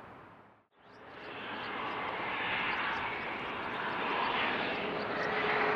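Gulfstream G650ER business jet's twin turbofan engines, a broad rushing noise that cuts in abruptly and swells steadily louder as the jet approaches.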